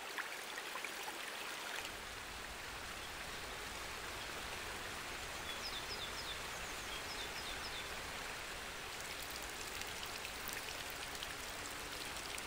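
Brook flowing over stones: a steady rush of water, with a few faint high chirps about halfway through.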